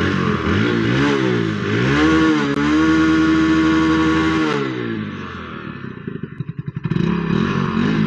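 Hero Splendor BS6 motorcycle's single-cylinder four-stroke engine, stock air filter fitted, being revved by hand on the throttle. It climbs to high revs and holds them for a couple of seconds, drops back to a slow, pulsing idle, then revs up again near the end.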